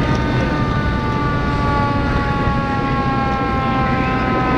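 A siren winding down, its wail falling slowly and steadily in pitch, over a steady low rumble.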